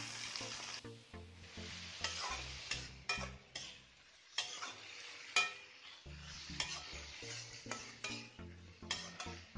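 A steel spatula stirring and scraping bitter gourd slices and onions around a metal kadai, with many short scrapes and knocks against the pan, over a light sizzle of the freshly added slices frying in hot oil. The sizzle is strongest in the first second.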